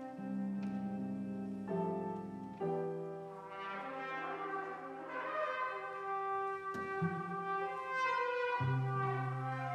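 Chamber orchestra playing slow, sustained chords that change every second or two.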